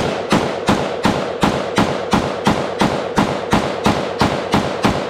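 T91 Tactical 5.56 mm carbine fired rapidly, a steady string of loud, evenly spaced shots at about three a second, each with a ringing echo.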